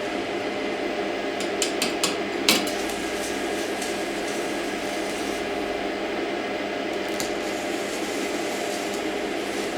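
Stick welding on a Zubr MOSFET inverter welder set to minimum current, with reverse polarity (electrode positive): a few sharp clicks as the electrode is struck, about two seconds in, then a steady arc held under the electrode.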